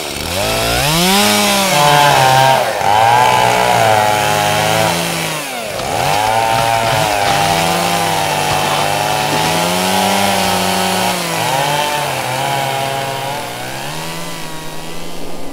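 Chainsaw engine revving up and down repeatedly, the pitch swinging between rises and falls, easing off briefly about six seconds in before revving again.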